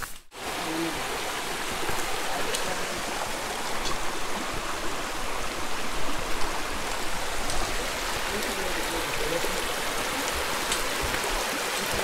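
Shallow mountain creek running over rocks, a steady rushing of water.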